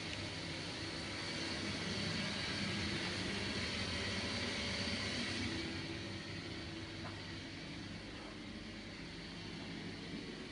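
Steady hiss and hum of a bathroom ventilation fan, growing fainter about halfway through.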